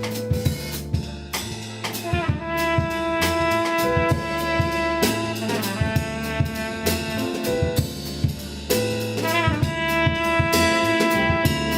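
Music: a band groove with a drum kit keeping a steady beat under a low bass line, with long held brass-like notes over the top.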